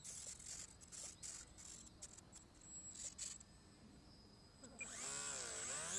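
Outdoor ambience: a thin, steady, high insect trill with soft rustling, then from near the end a louder warbling call that wavers up and down in pitch.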